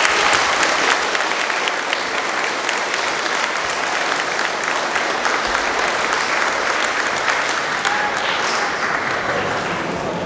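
Audience applauding: many people clapping steadily, easing off slightly near the end.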